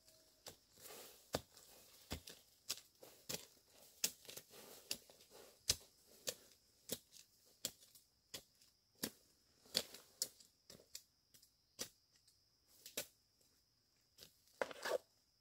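Irregular sharp snaps and cracks of bamboo shoots being cut and broken off in the undergrowth, about one or two a second, with some tearing sounds. A thin, steady high whine sets in about halfway through.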